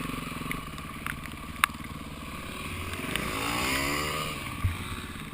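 Dirt bike engine running, with revs rising about three seconds in and falling away again a second or so later. A single sharp knock sounds about one and a half seconds in.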